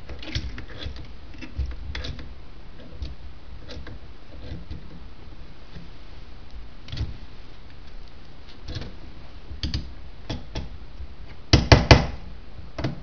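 Light clicks and knocks of small metal parts being handled on a car's brake pedal box assembly, then a quick run of several sharp hammer taps near the end.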